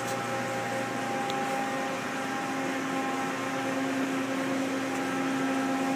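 Steady electrical hum with several held tones over a fan-like hiss, from powered machinery and cooling fans; a low hum grows stronger about two seconds in.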